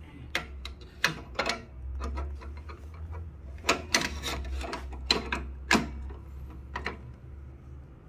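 Irregular metal clicks and knocks from an espresso machine's portafilter being fitted and locked into the group head, over a low steady hum.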